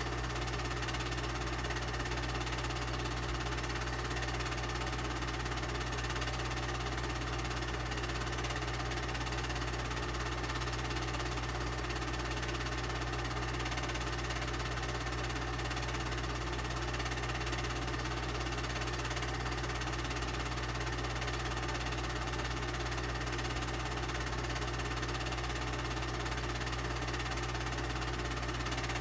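Home-movie film projector running steadily, its motor and film mechanism making an even mechanical hum and whirr.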